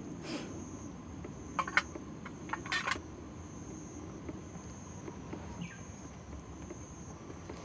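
An insect trilling on one steady high note, with a few short sharp clicks about one and a half and three seconds in.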